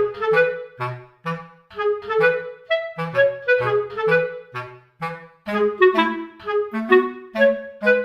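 Background music: a jaunty clarinet melody over a bouncing bass line, in short separate notes at a steady beat.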